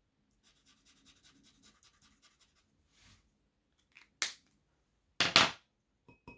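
Handling of a yellow Edding 5100 acrylic paint marker: about two seconds of faint, rapid ticking, then a sharp click about four seconds in and two louder clicks a second later, as the cap and marker are handled.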